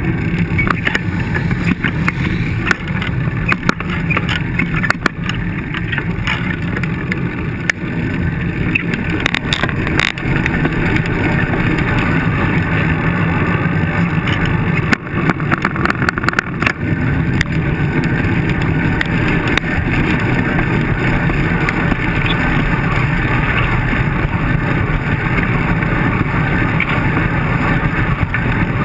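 Steady road rumble and wind rush picked up by a camera mounted on a road bike's handlebars as it rides over rough pavement. A few sharp knocks and rattles come from bumps, clustered about ten seconds in and again around fifteen seconds in.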